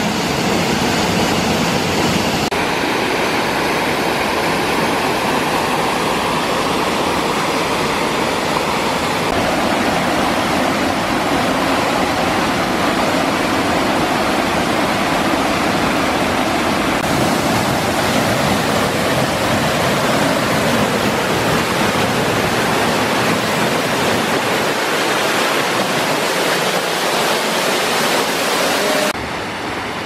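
Waterfall's falling water, a steady loud rushing that drops in level near the end.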